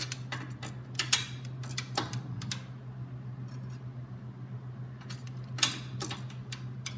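Metallic clicks and clinks of a beam-type torque wrench and socket working a hitch bolt, in three short clusters, over a steady low hum.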